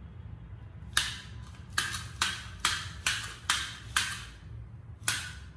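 Plastic toy gun clicking as its trigger is worked: eight sharp clicks, a first one about a second in, then six in a quick run of about two a second, and one more near the end.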